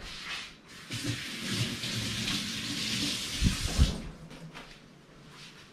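Kitchen tap running for about three seconds, a steady hiss of water, with two low thuds near the end as it stops.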